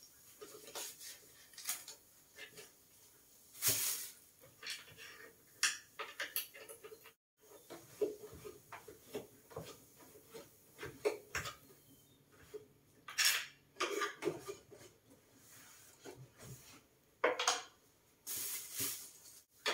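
Small hard items on a wooden dresser clinking and knocking as it is wiped down with a cloth: irregular taps and clatters, some louder than others.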